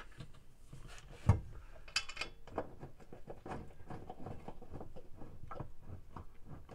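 Irregular clicks, taps and light knocks as parts are handled against a washing machine's plastic outer tub and metal clutch mounting plate. One sharper thump comes about a second in, followed by a short rattle.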